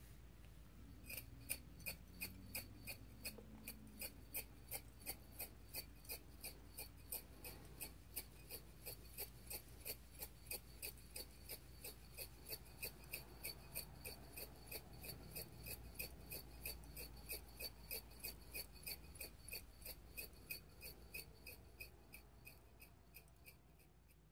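Steady mechanical ticking, about two ticks a second, starting about a second in, over a faint low hum.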